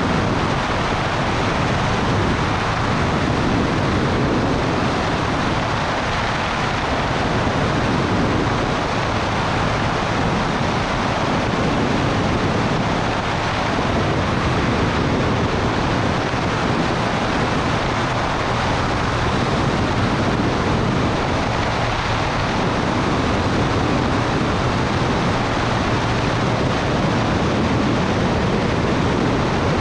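Steady rushing noise of a Cessna 210 Turbo Centurion in cruise flight: airflow buffeting a camera mounted outside under the wing, over the constant drone of the turbocharged engine and propeller.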